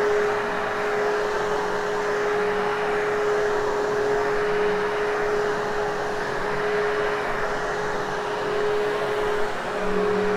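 Hoover Hushtone vacuum cleaner running steadily as it is worked over a heavily hair-covered carpet, its motor holding one constant hum over a rush of air.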